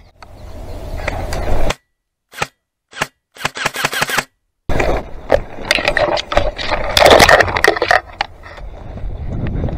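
Airsoft gun shots: a few separate sharp cracks, then a quick rapid burst about four seconds in. After that comes a stretch of dense clatter and rustling with more sharp clicks, loudest around seven seconds.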